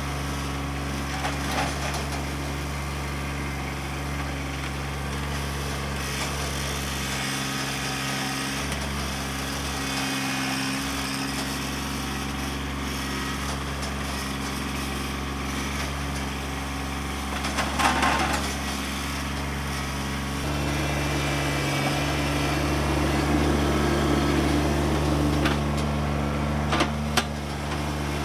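Kubota B2601 compact tractor's three-cylinder diesel engine running steadily under load while its front stump bucket digs around a tree stump. About 20 seconds in the engine speed steps up and it gets louder, with a few short knocks around then.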